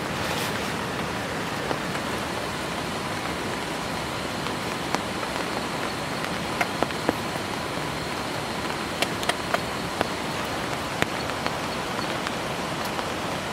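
Heavy rain falling steadily, a dense hiss broken by scattered sharp ticks.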